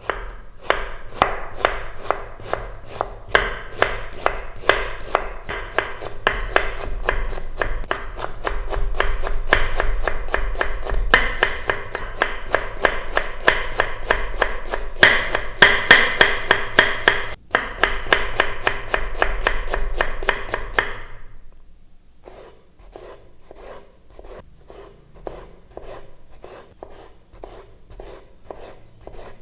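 Chef's knife chopping onions on a wooden cutting board in a fast, even rhythm, about three to four strokes a second. About 21 seconds in, the strokes turn much quieter as the knife slices tomatoes.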